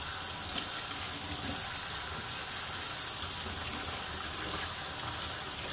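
Kitchen tap running steadily, the water pouring through a fine mesh strainer of raw quinoa and into a bowl in the sink as the grain is rinsed.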